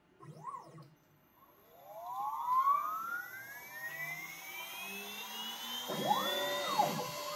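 CNC router spindle spinning up, a whine rising steadily in pitch over about five seconds. Near the end the axis stepper motors whir up and down in pitch as the head moves over the workpiece.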